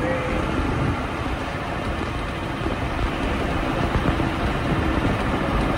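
Mercedes-Benz 1417 truck's freshly overhauled diesel engine running steadily as the truck drives along, heard inside the cab together with road and cab noise.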